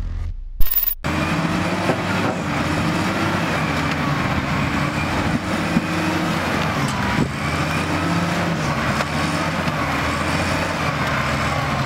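XCMG ZL50GN wheel loader's diesel engine running steadily as the loader works into rubble and a concrete-block wall, starting about a second in after a brief sharp hit.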